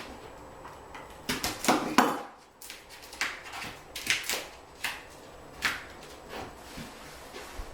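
Irregular crinkling and scraping of a peel-and-stick edge strip being handled and wrapped around a toilet flange. About a dozen short rustles, the loudest cluster about a second and a half in.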